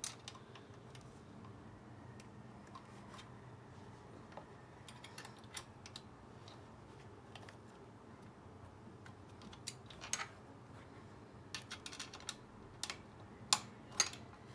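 Scattered small metallic clicks and taps of screws and a hand tool as the engine's mounting screws are put in and fastened, with a quick run of sharper clicks in the last few seconds.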